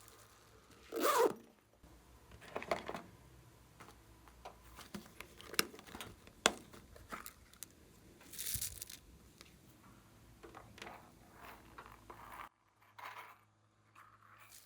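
Glossy slime being worked by hand: sticky stretching and tearing noises, a few sharp clicks near the middle, and faint crackling in between.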